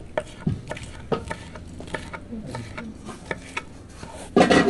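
Scattered light clicks and knocks of kitchen work, dishes and utensils being handled, with a louder, noisier clatter near the end.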